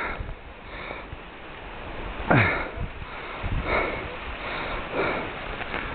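Heavy breathing of a man on foot, hard exhales about every second and a half, some with a falling voiced sigh, from the effort of climbing a slope through scrub.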